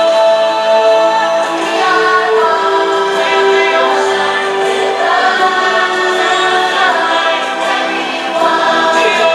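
Show soundtrack music with a choir singing long, sustained notes over an orchestral backing.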